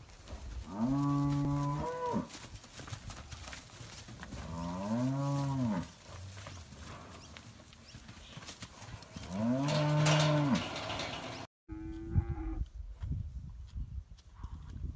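Cattle mooing: three long moos about four seconds apart, each rising and then falling in pitch, followed by a shorter moo near the end.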